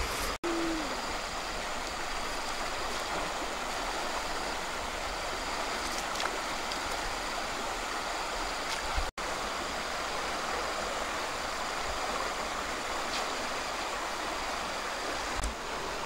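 Steady rushing of a swollen, fast-flowing river, cutting out for an instant twice.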